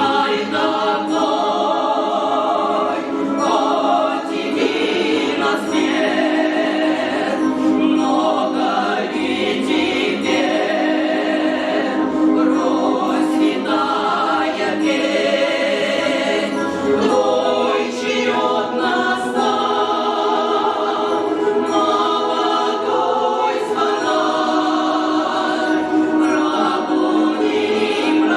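Choir singing a song in full harmony, with long held notes.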